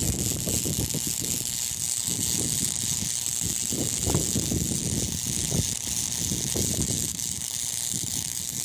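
Electric arc welding on cast iron: a steady hiss of the arc with an irregular crackle underneath, held without a break.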